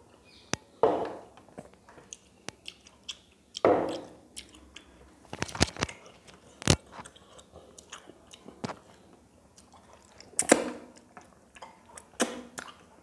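A person eating by hand close to the microphone: a few loud slurps of thin curry broth, with lip smacks and short chewing clicks between them.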